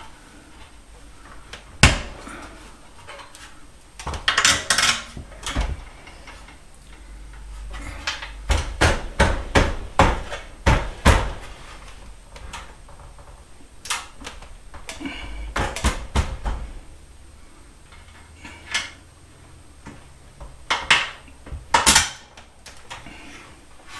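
Scattered sharp metallic clicks and knocks of a screwdriver and hands working a folding attic stair's metal hinge, trying to force the bolt holes into line. A quick run of knocks comes about eight to eleven seconds in.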